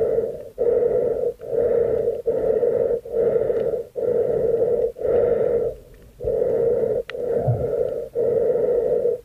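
A swimmer breathing hard and fast through a snorkel, a steady run of short rushing breaths with one longer pause about six seconds in.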